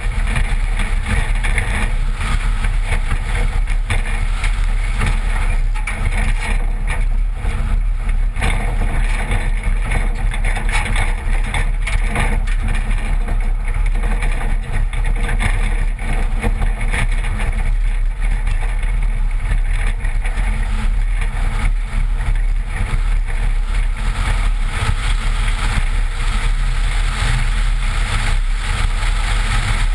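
A 1986 Toyota with a 22R engine driving fast on a dirt road: a steady, loud rush of wind and tyre noise with a heavy low rumble, and a few sharp knocks from the bumpy ground around a third of the way in.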